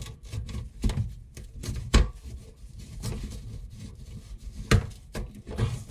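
Ratcheting PVC pipe cutter being squeezed onto a plastic sink drain tailpiece: irregular sharp clicks and knocks as the blade ratchets into the pipe, the loudest about two seconds in and near the end.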